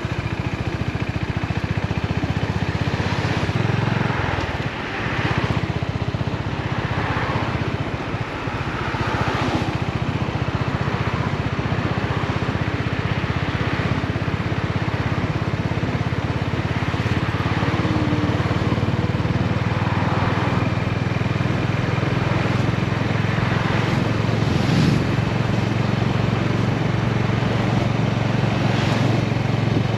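Honda GB350's single-cylinder engine running steadily under way, its exhaust note dipping briefly about four and eight seconds in.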